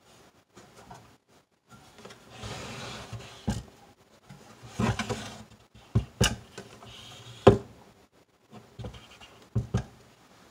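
A Super Technicolor 580 projector being turned around by hand on a wooden tabletop: a sliding scrape about two seconds in, then several sharp knocks as its feet and case are lifted and set back down on the wood.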